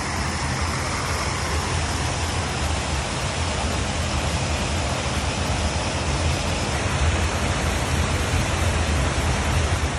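Creek running high, rushing out of a concrete culvert and tumbling down over rocks: a loud, steady rush of water.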